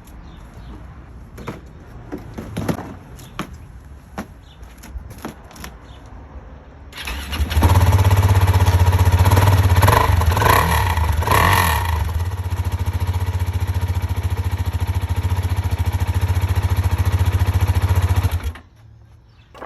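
KTM 690 SMC R's single-cylinder engine, breathing through an Arrow full exhaust system, starts about seven seconds in and runs at idle with a strong low pulse, then is switched off about a second before the end. A few faint clicks come before it starts.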